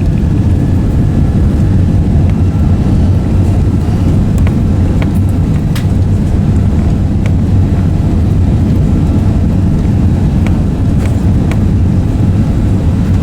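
Steady, loud low rumble of the engines and airflow inside the cabin of a British Airways Airbus A380 with Rolls-Royce Trent 900 engines.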